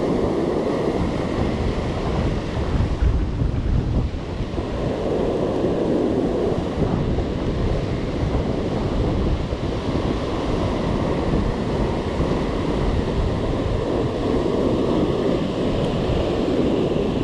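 Ocean surf breaking and washing over a rocky shore, swelling and easing with each wave, with wind rumbling on the microphone.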